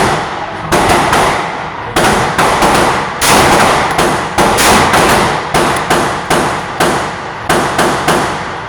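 A loud string of 9mm pistol shots from a Glock 43X, fired in quick succession at about two shots a second, each with an echoing tail.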